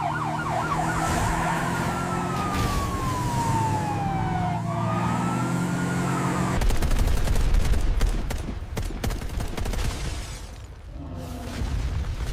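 An emergency siren yelps, then wails in a slow fall and rise over a low steady drone. About six and a half seconds in it cuts off to a loud low rumble with a rapid run of sharp cracks and clatters, which dies down near the end.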